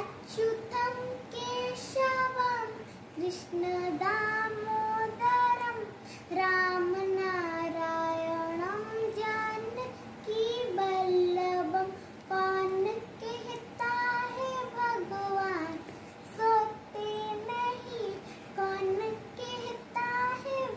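A young girl singing a devotional song to Krishna without accompaniment, in a clear high voice with long held notes.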